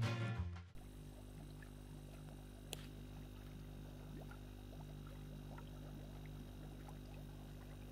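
Background music fades out in the first second. Then comes quiet pond water: faint, irregular small plops and pops at the surface over a steady low hum, with one sharper click about three seconds in.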